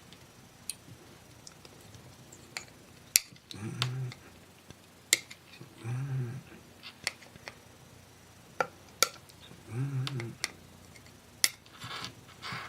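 Sharp single clicks, a few seconds apart, of small flush cutters snipping off component leads on a soldered circuit board. Between them come short, low, voice-like sounds every few seconds, a dog whining.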